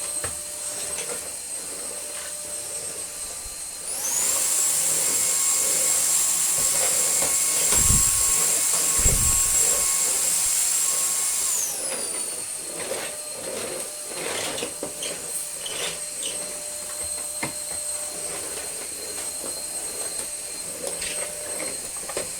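Numatic Henry Quick NQ100 cordless stick vacuum running on a hard floor with a steady high motor whine. About four seconds in, the motor steps up to a louder, higher-pitched whine, then drops back about eight seconds later. Scattered clicks and ticks can be heard as it works over the floor, along with a couple of dull knocks during the louder stretch.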